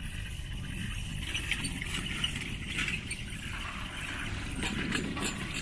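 Steady low rumble of wind on the microphone, with faint scattered clicks and rattles, heard while riding a chairlift.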